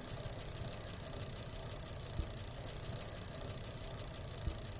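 Steady hiss, bright and high-pitched, over a fast low flutter or rattle.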